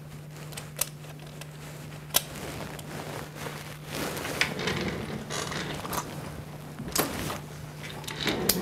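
Scattered light clicks and handling noises of knurled bolts being threaded by hand into a belt-drive clutch pressure plate, over a steady low hum.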